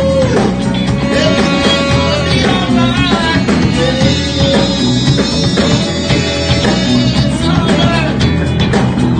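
Live band playing a rock number during a sound check: drums and bass keep a steady beat under a lead line of held notes that bend at their ends.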